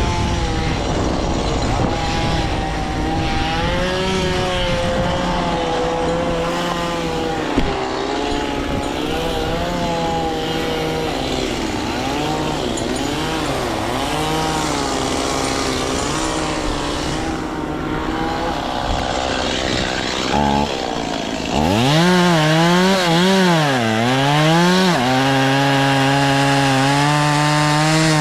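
A small engine running with a wavering pitch; about two-thirds of the way through it gets louder and revs up and down several times, then holds a steady note.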